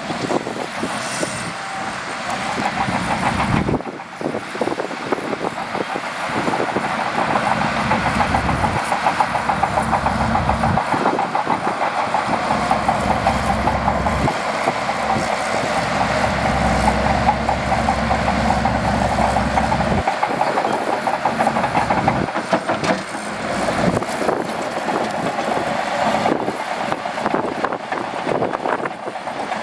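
Shantui DH17C2 crawler bulldozer working: its diesel engine running with the steel tracks clattering continuously. The engine's low rumble swells louder for a few seconds at a time, most strongly around the middle.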